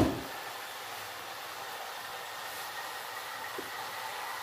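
Tap water pouring steadily into an electric kettle as it is filled at the sink.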